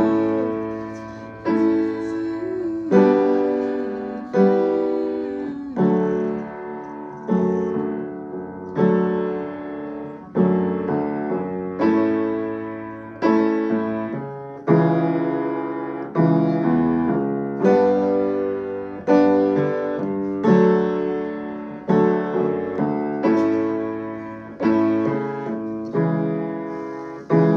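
Piano playing a slow solo of held chords, a new chord struck about every second and a half and left to ring and fade before the next.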